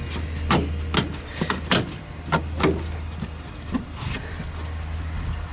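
Plastic pollen filter cover of a Vauxhall Corsa C being handled and pressed into place: a series of sharp plastic clicks and knocks, bunched in the first three seconds with one more about four seconds in, over a steady low hum.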